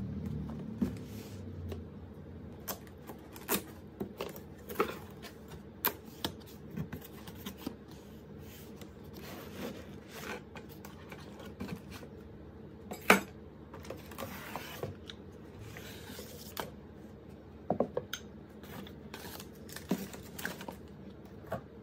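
Cardboard box being unpacked by hand: irregular taps, scrapes and rustles of cardboard flaps and packing, with one sharper knock about 13 seconds in, over a faint steady low hum.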